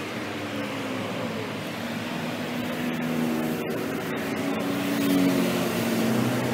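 Road traffic passing in a steady rush, with a heavy vehicle's engine note growing louder through the middle and peaking about five seconds in.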